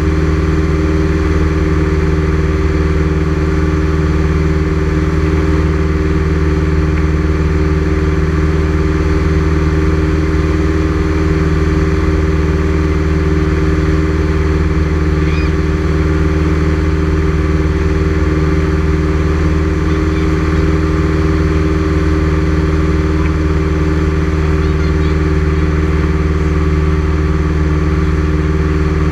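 Light aircraft's engine and propeller droning steadily in flight, heard inside the cabin.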